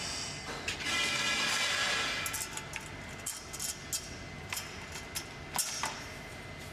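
Tubular metal handle frame of a storage trolley being fitted into its base: a metal-on-metal scraping slide about a second in, then a string of sharp metallic clicks and knocks.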